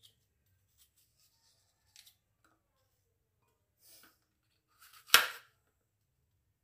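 Kitchen knife slicing through an apple against a cutting tray: a few faint cuts, then one sharp, loud knock of the blade about five seconds in.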